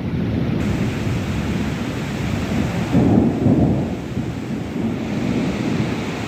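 Heavy rain pouring steadily, with a low rumble underneath that swells about three seconds in.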